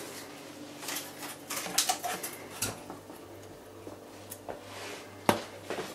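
Plastic meat tray crackling and tapping as raw diced beef is tipped out of it into a slow cooker's pot, with a scatter of soft knocks and clicks, the sharpest about five seconds in.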